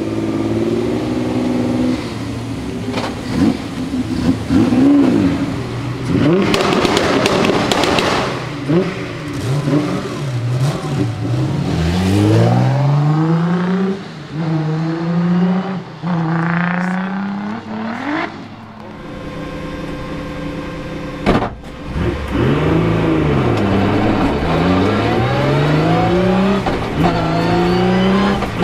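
Nissan 200SX's swapped-in VR38DETT twin-turbo V6 revving and accelerating, its pitch rising and falling again and again as it climbs and shifts through the gears. There is a single sharp crack about two-thirds of the way through.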